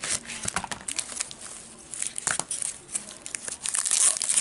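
Packaging being handled and unwrapped: irregular crinkling and rustling with sharp little crackles, quieter midway and busier again near the end.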